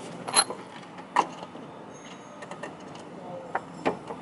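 A few separate metallic clicks and knocks as the last nut holding an old coilover strut is worked off by hand. The strikes are scattered, with a small cluster near the end.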